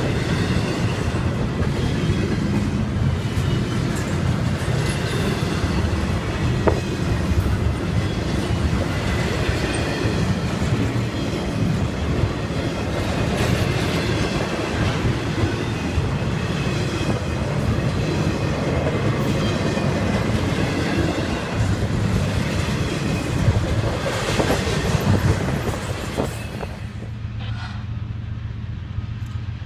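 Norfolk Southern double-stack intermodal freight cars rolling past close by: a steady rumble and rattle of steel wheels on rail with clickety-clack over the rail joints. About three seconds before the end it cuts to a quieter, steady low rumble.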